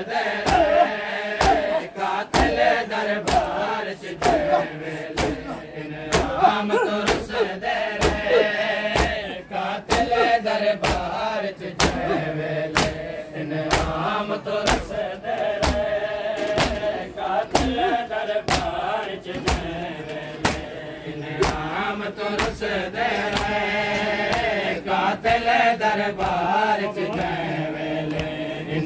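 A group of men chanting a noha, a Shia mourning lament, in unison, over the steady rhythmic slaps of a crowd beating their chests in matam, about two strikes a second.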